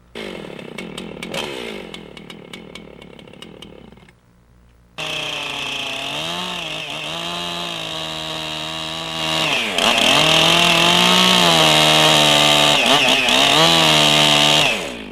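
Chainsaw cutting into a log: the engine first runs down in pitch, then after a short pause runs at high speed. Its note dips briefly several times as the bar loads in the wood, and it grows louder about ten seconds in before cutting off abruptly.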